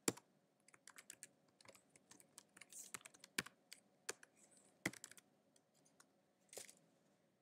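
Faint typing on a computer keyboard: irregular keystroke clicks, a few louder than the rest, stopping shortly before the end.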